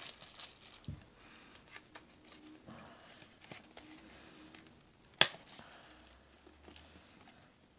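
A cardboard box being handled and worked open by hand: faint scrapes, rustles and small clicks, with one sharp snap about five seconds in.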